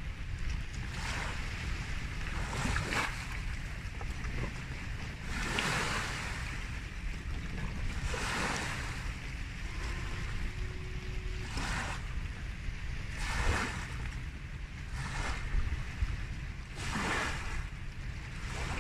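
Waves washing ashore in a rushing swell every couple of seconds, over a steady low rumble of wind on the microphone.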